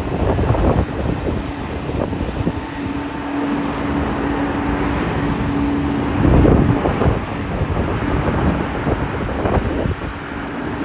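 Boeing 767 jet airliner landing: continuous jet engine and rushing-air noise with a rumble, a steady hum through the middle and a brief louder surge about six seconds in.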